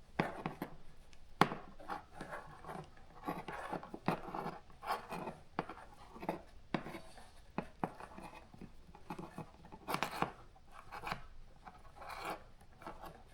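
Close handling noise of hands twisting stripped stranded copper wires together for a splice: irregular small clicks, scratches and rustles of wire strands and insulation, with no steady tone.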